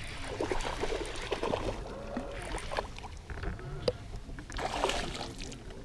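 Water lapping and splashing lightly at the side of a fishing boat, with scattered small clicks and one sharp knock near the middle.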